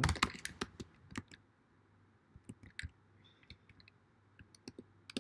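Computer keyboard typing: irregular keystroke clicks, a quick run of them at the start, then scattered taps in small groups.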